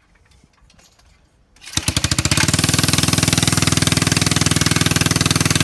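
Mini bike's 150cc Tecumseh single-cylinder engine starting about two seconds in, rising quickly and settling into a loud, fast, steady run.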